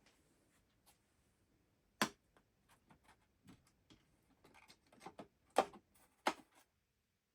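Irregular clicks and knocks of hands handling hard objects, with three louder sharp clicks: one about two seconds in and two near the end.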